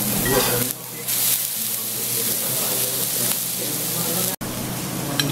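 Sausage sizzling on a hot cooking stone, a steady hiss. The sound cuts out for an instant about four seconds in.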